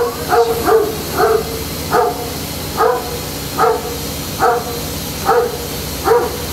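A dog barking over and over, a short bark roughly every second, the first few coming a little quicker.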